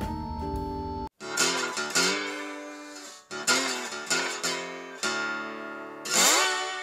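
Acoustic guitar music: chords are picked and strummed, each ringing out and fading, and one chord slides up in pitch about six seconds in. Before the guitar comes in, about the first second holds other music over steady low noise that cuts off abruptly.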